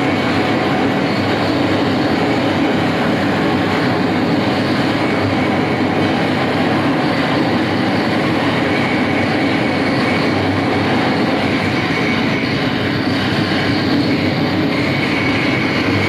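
Live harsh noise music: a dense, steady wall of distorted electronic noise with a low rumbling core and a faint high whine that grows a little near the end.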